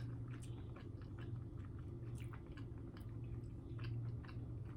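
A person chewing pizza close to the microphone, with irregular wet mouth clicks and smacks. A steady low hum runs underneath.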